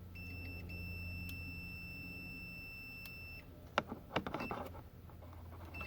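Multimeter continuity beeper giving a steady high beep for about three seconds, with a brief drop-out near the start, while the probes bridge the tuner's centre pin and ground. The beep marks a low resistance between them. It stops, then comes a click and a moment of probe handling with a short blip of the beep.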